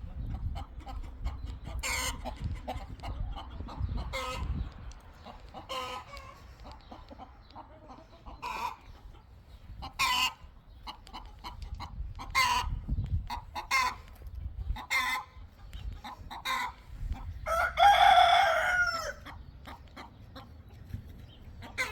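Chickens clucking in short, scattered calls, and near the end a rooster crowing once, the loudest sound.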